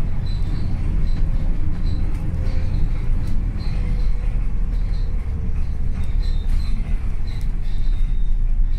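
Steady low rumble of a vehicle in motion, with faint short high chirps scattered over it.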